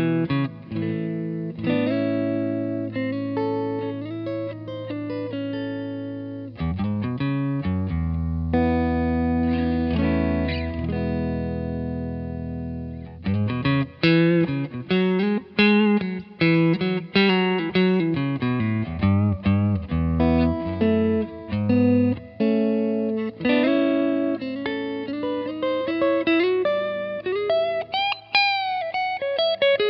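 Mexican-made Fender Telecaster played clean through a Vintage Sound 22SC tube amp with spring-style reverb: strummed chords left to ring for the first dozen or so seconds, then quicker single-note lines with string bends near the end.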